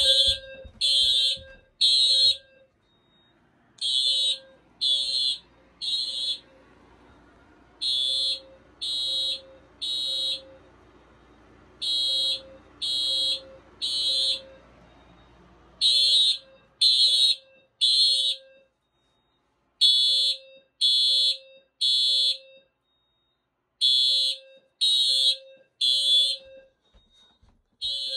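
Simplex 4100ES fire alarm system sounding its evacuation signal in the temporal-three pattern: three short high-pitched tones about a second apart, then a pause, repeating over and over.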